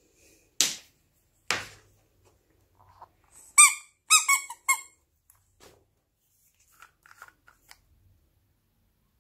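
Two sharp knocks, then a green rubber mouse squeeze toy squeaked four times in quick succession, each squeak short and falling in pitch.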